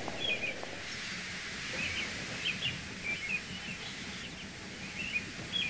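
Small birds chirping on and off over a faint steady background hiss and low hum, an outdoor ambience bed.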